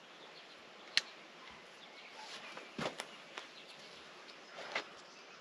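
A few sharp metal clicks and clinks of hand tools and hydraulic fittings being handled, the loudest about a second in and another near three seconds, over a faint steady background.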